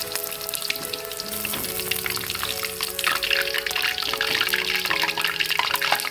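Hot oil sizzling and crackling in a frying pan, with many small pops that grow denser about halfway through, under background music with held notes.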